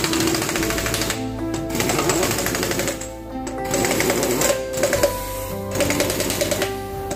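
Background music: a melody of held notes over a busy rattling beat that pauses about every two seconds.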